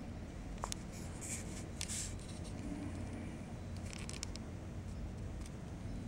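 Camera handling noise: a few brief scratches and clicks, about a second in, around two seconds and around four seconds, over a steady low rumble.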